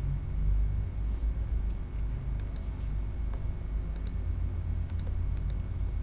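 Computer mouse button clicking a few times, some clicks in quick press-and-release pairs, over a steady low hum.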